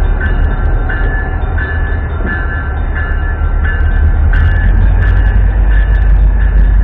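Railroad crossing's Safetran mechanical bells ringing in a steady repeating pattern, over a heavy low rumble that is the loudest sound.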